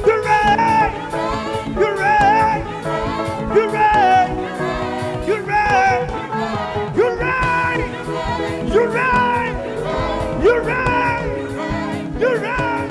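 Gospel praise music: a sung vocal line over band accompaniment with a steady beat, with choir voices.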